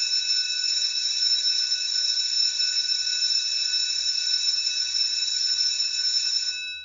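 Electric bell ringing continuously, like a school or fire-alarm bell, in one steady ring that stops shortly before the end with a brief ring-out.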